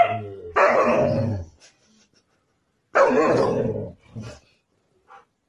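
Husky "talking": two drawn-out, bending howl-like vocalizations of about a second each, with a short third call just after the second.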